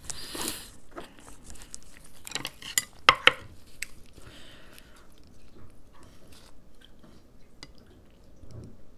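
Eating sounds: chopsticks clicking and scraping against a plate, loudest in a few sharp clicks about three seconds in, with soft chewing and the rustle of a lettuce leaf being handled.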